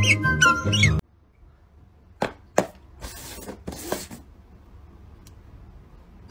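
Background music that cuts off about a second in, followed by two sharp taps of paper cups set down on a tabletop and about a second of scraping rustle as the cups are slid around.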